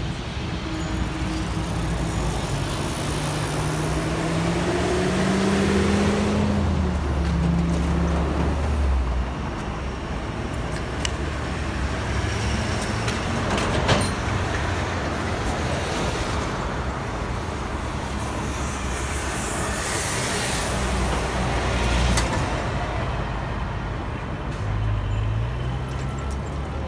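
City street traffic: cars and a coach bus driving past, with one engine rising in pitch as its vehicle pulls away a few seconds in.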